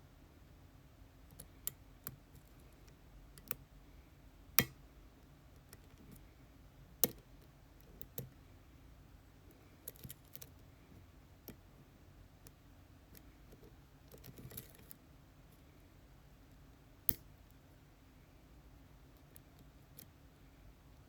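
Lock picks working inside an ASSA Twin Exclusive pin-tumbler lock cylinder during picking: scattered light metallic clicks, a dozen or so, a few of them sharper than the rest, with a short scraping rattle about fourteen seconds in.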